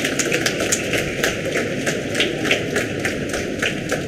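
Audience applauding with a sparse, irregular patter of claps, several sharp individual claps standing out over the hall's steady background noise.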